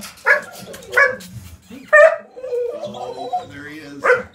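Dogs barking: four short, sharp barks at uneven intervals, with quieter pitched dog sounds between them.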